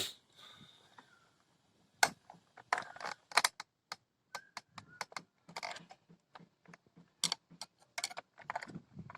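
Irregular metallic clicks, clinks and knocks of tools and parts being handled while a brush cutter's clutch is put back together and tightened.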